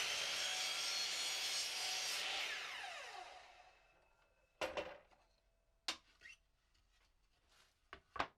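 Power saw cutting through a piece of wood, then switched off, its blade winding down in a falling whine over about a second. Several short knocks follow as the cut wood is handled.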